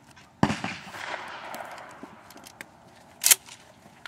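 A shotgun shot about half a second in, with a long rolling echo that fades over a second or so. A short, sharp hiss follows near the end.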